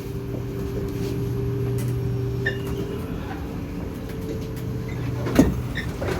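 Stationary C751B MRT train humming at the platform with its doors open: a steady low hum from its onboard equipment, with a higher tone that stops about halfway. A single sharp knock comes near the end.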